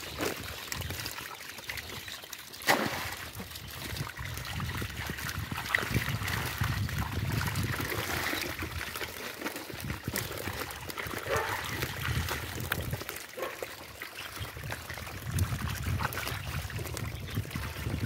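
Water trickling and splashing as wet, freshly netted fish are handled and scooped, with scattered sharp knocks, the loudest a little under three seconds in.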